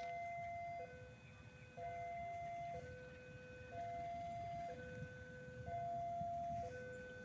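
Railway level-crossing warning alarm sounding its electronic two-tone signal, a higher and a lower note alternating about once a second, the warning that a train is approaching.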